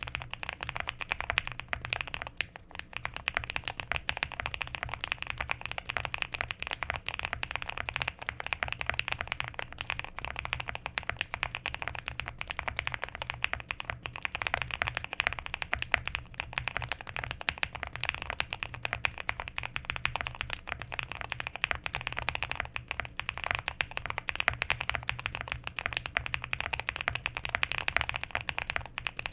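Continuous fast typing on a QK65 custom mechanical keyboard with linear frankenswitches (Nixdork top, Boba LT stem, Lilac bottom) in a POM plate, a foam-filled case, PBT keycaps and Owlstabs. It is a dense stream of keystrokes with a brief pause about two and a half seconds in.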